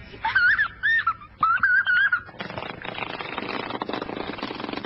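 A child blowing a small metal toy wind instrument: three short, loud, wavering high notes in the first two seconds. After that comes a steady scratchy, rustling noise.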